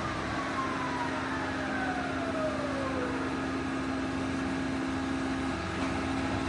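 A Monarch 24" x 80" engine lathe with its spindle running at its top speed of 1750 RPM: a steady machine hum with a steady whine, quiet for that speed. Over the first three seconds a second tone falls steadily in pitch.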